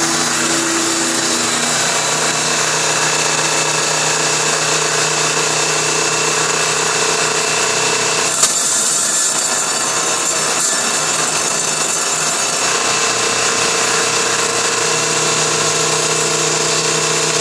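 Table saw running with its blade cutting into the inside of a spinning segmented wooden bowl, the bowl turned by a corded drill clamped in the jig. A steady, loud machine noise with a hum, broken by a sharp tick about halfway through, after which the hum drops away for a few seconds and comes back.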